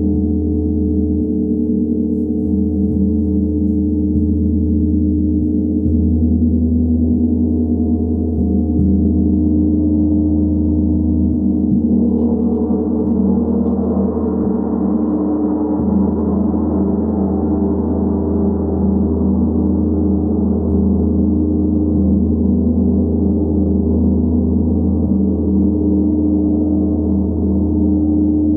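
Large forged Tibetan gong ringing continuously under soft mallet strokes: a steady wash of low overlapping tones that swells brighter about twelve seconds in, then eases back.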